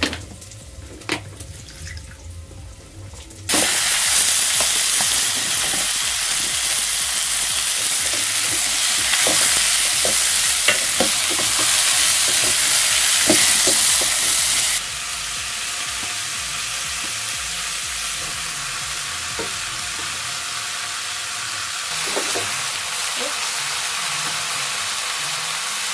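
Raw potato wedges going into hot vegetable oil for chips: after a few clicks of handling, a loud sizzle starts suddenly a few seconds in, with small knocks of the utensil, and settles to a quieter steady sizzle about halfway through.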